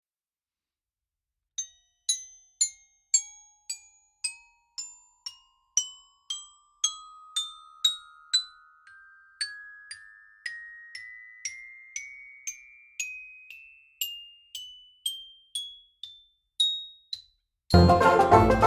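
Tuned mallet percussion playing single struck notes, about two a second, climbing slowly in pitch like a long rising scale, each note ringing briefly. It starts about a second and a half in, and other music cuts in near the end.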